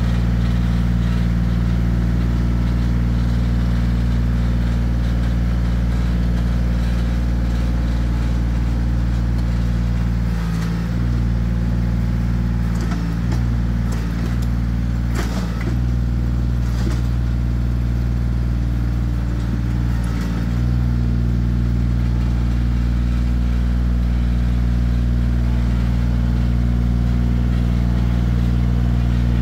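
Compact 25 hp diesel tractor engine running steadily under load as it drags a rear box blade through loose dirt. In the middle stretch the engine drops back a little and a few metal clanks and knocks come through.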